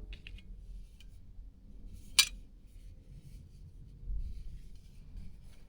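Faint handling of small parts of a windmill ornament being assembled, with scattered light clicks and one sharp click about two seconds in.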